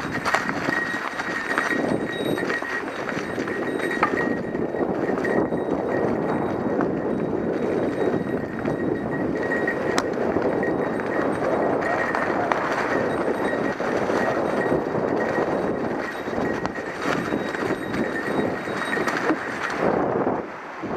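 Mountain bike rolling over a rough trail: continuous tyre and rolling noise with scattered sharp knocks and rattles from the bike, dropping off briefly near the end.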